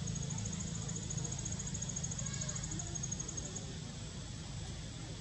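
Outdoor ambience: a low steady rumble with a high, fast-pulsing insect trill through the first three and a half seconds.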